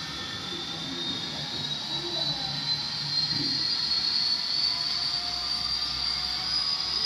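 00 gauge model train running on the layout, led by a model 201 Class diesel locomotive. A thin high whine rises slowly in pitch and grows louder as the train approaches.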